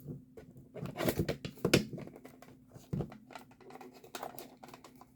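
Crinkling and tearing of packaging, with irregular small clicks and knocks, as a small pen holder is handled and unwrapped.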